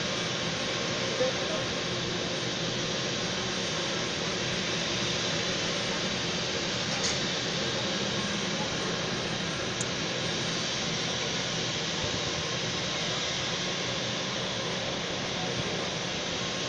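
Steady whooshing hum of jet airliner engines idling on the apron, with two faint clicks partway through.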